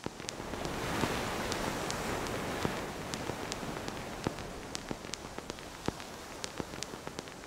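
A steady hiss scattered with irregular sharp crackles and pops, swelling in over the first second and easing off slightly later.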